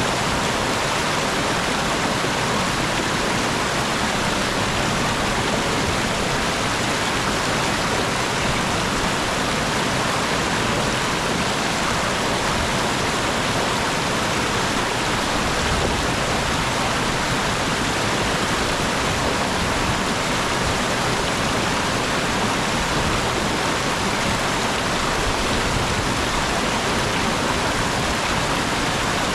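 Mountain stream rushing over a small waterfall: a steady, dense rush of falling and flowing water.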